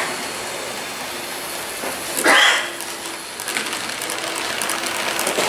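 Model diesel locomotive and its hopper wagons rolling along the track with a steady light whirr and faint clicking. A single short, loud call cuts in about two seconds in and is the loudest sound.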